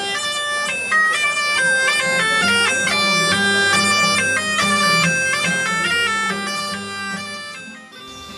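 German shepherd's pipe (Schäferpfeife) bagpipe playing a running folk melody over a steady drone, fading out near the end.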